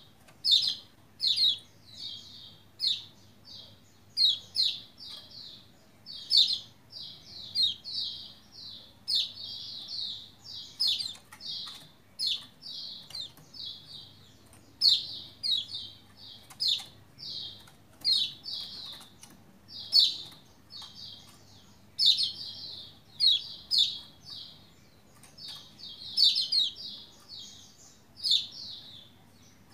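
Caged Lombok white-eye (pleci, kecial kuning) calling steadily: runs of short, high chirps, several a second, in quick clusters, a bird in full voice (gacor).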